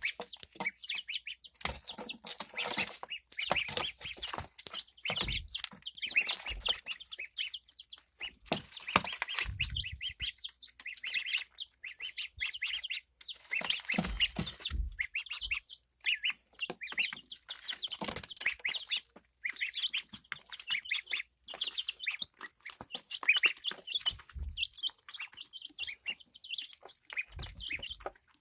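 Baby chickens and a duckling cheeping non-stop, a dense run of short high-pitched peeps, with a few low bumps now and then.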